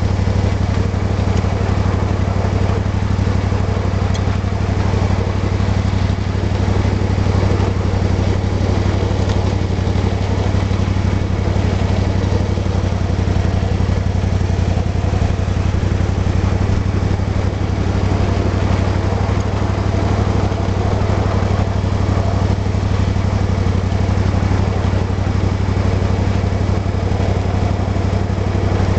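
Small engine of a ride-on 1/8-scale SOO Line F7A model locomotive running steadily as the train rolls along, a constant low hum with no change in pace.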